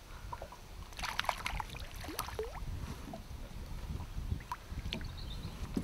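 Lake water lapping and sloshing against the side of a small fishing boat, over a low rumble, with a cluster of sharp crackles about a second in.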